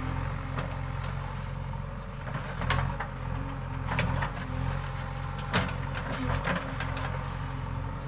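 JCB 3DX backhoe loader's diesel engine running steadily under load while the backhoe arm and bucket work, with a few short sharp knocks spread through.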